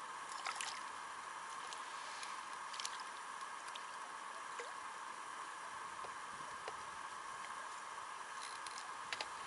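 Quiet waterside ambience: a steady, even hiss with a few faint clicks, one about half a second in, another near three seconds and a couple near the end.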